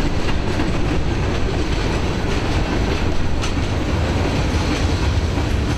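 Freight cars rolling past close by, among them a centerbeam flatcar, a tank car, a covered hopper and a boxcar: a steady rumble of steel wheels on the rails, with occasional clicks over the rail joints.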